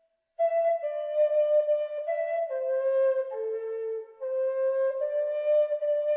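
Flute playing a slow melody of held notes that steps down in pitch and then back up, entering after a brief silence.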